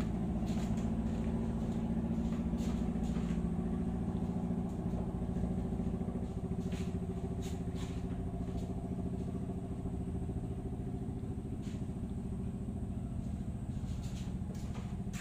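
A motor running steadily at idle, a low even hum, with scattered light knocks and clicks over it.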